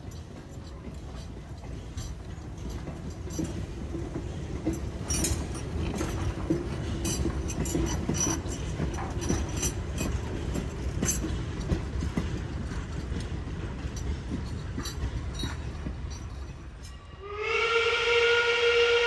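Replica 4-4-0 steam locomotive Leviathan 63 running with its train, a low rumble with scattered clicks of wheels on the rails. About two seconds before the end its steam whistle blows, a loud chord held steady.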